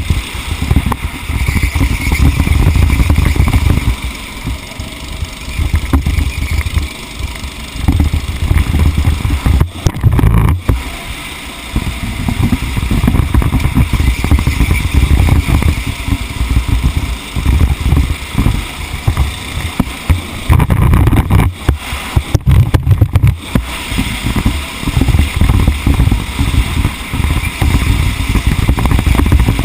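Onboard sound of a racing kart's engine running hard lap after lap, with heavy wind buffeting on the microphone. The engine note drops away briefly about ten seconds in and again a little past twenty seconds, then comes back up.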